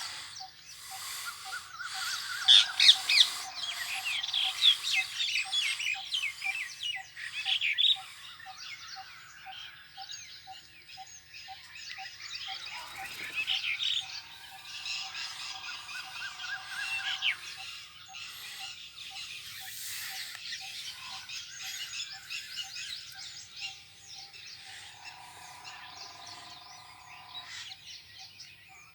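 Parrots chattering with rapid high chirps and squawks, busiest and loudest in the first few seconds. Behind them a faint short note repeats evenly about twice a second.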